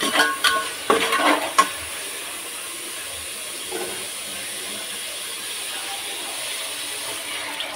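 Curry base of fried ginger-garlic paste sizzling in a cooking pot with a steady hiss. There are a few sharp utensil knocks against the pot in the first second and a half.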